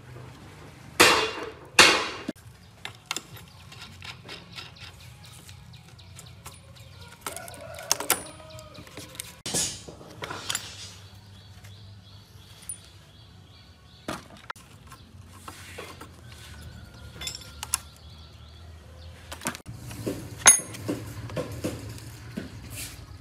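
Metal engine parts and tools clinking and knocking as an old truck engine is taken apart by hand: the fuel rail with its injectors lifted off the intake manifold and cables worked loose. The loudest knocks come about a second and two seconds in and again near the end, over a low steady hum.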